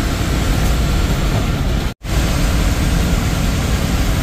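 Steady engine and road noise inside a moving KSRTC bus, heard from the front by the driver. The sound drops out for an instant about two seconds in.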